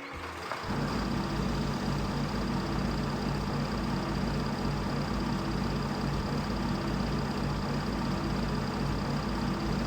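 A steady engine-like motor hum starts about half a second in and runs at an even pitch, with a faint high whine over it.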